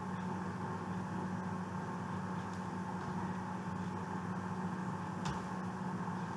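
Steady background hum with a single short click about five seconds in.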